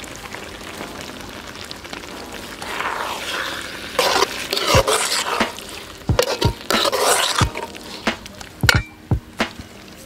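A perforated metal ladle stirring thick chicken liver gravy in a metal pan, with scraping swishes. From about halfway through it knocks sharply against the pan several times. Under this is a low steady sizzle from the gravy cooking on the fire.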